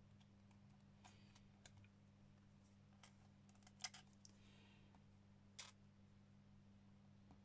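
Near silence with a steady low hum, broken by a few faint sharp clicks and taps from small metal charms and a small plastic container being handled on a craft mat. The sharpest click comes about four seconds in, and another follows a second and a half later.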